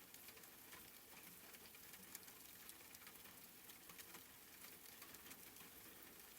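Faint rain: a soft, steady patter of small drops.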